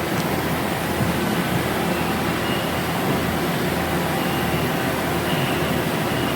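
Steady running noise of machine-shop machinery: an even mechanical hum with faint steady tones.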